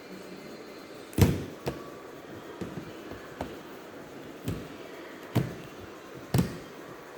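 About seven sharp clicks and knocks at irregular intervals, the loudest about a second in: hard plastic and metal laptop parts being handled and set down during disassembly.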